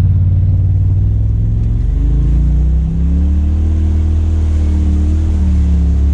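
Side-by-side UTV engine running as it drives along a muddy trail, heard from inside the cab. The revs climb about two seconds in and ease off again near the end.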